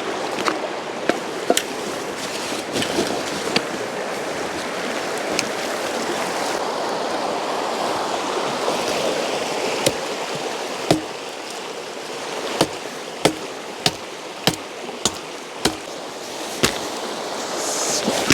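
Steady rush of a mountain river flowing over its bed, with scattered sharp snaps and knocks over it that come in a regular run of about one every half-second to second in the second half.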